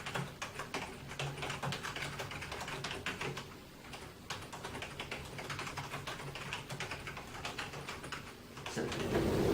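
Typing on a computer keyboard: a fast, irregular run of keystrokes with a short lull partway through. The typing stops shortly before the end.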